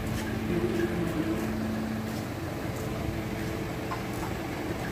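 Steady hum of workshop machinery with a few faint clicks.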